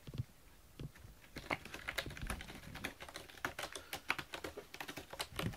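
Cat clawing at a corrugated cardboard scratcher: a quick, irregular run of scratchy clicks that starts about a second in.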